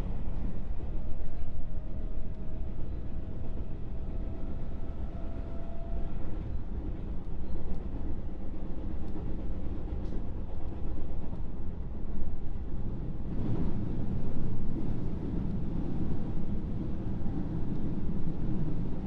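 JR West 221 series electric train running, heard inside its motor car: a steady low rumble of wheels on rail. A faint whine rises over the first few seconds, and the noise grows louder for a stretch about two-thirds of the way in.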